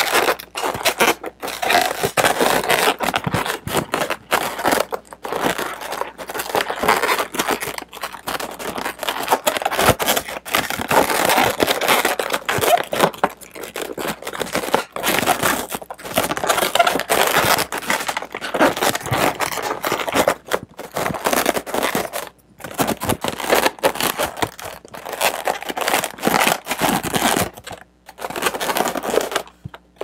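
Latex modelling balloons rubbing and scraping against each other as a balloon tail is twisted around the neck of a twisted-balloon figure and pulled through a loop: an irregular rubbery scrape with brief pauses near the end.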